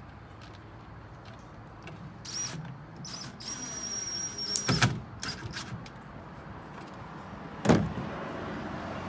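Power drill driving a drywall screw into wood: two short bursts of high motor whine, then a steady run of about a second, followed by a loud knock and another knock about three seconds later.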